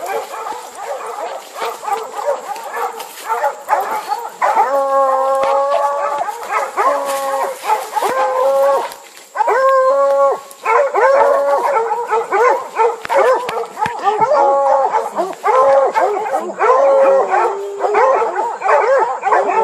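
Hunting hounds baying in long, drawn-out howling bays. The bays grow louder and come almost without a break from about four seconds in, at times overlapping.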